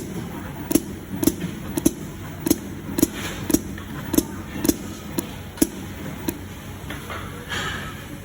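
Automatic silicone dispensing machine at work, clicking about twice a second for some six seconds as it dispenses liquid silicone into the mould, then a short hiss near the end.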